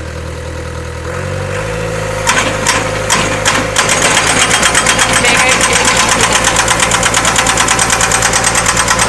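Hydraulic excavator's diesel engine running, its pitch dipping and picking up again, then a hydraulic breaker attachment starts hammering about two seconds in: a few separate blows, then a fast, even run of impacts, several a second. The breaker is working through a newly fitted main relief valve that replaced a clogged one.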